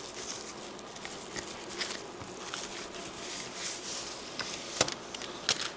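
Hands handling thin adhesive tape strips and their packaging: soft rustling with scattered light clicks, and a couple of sharper taps near the end.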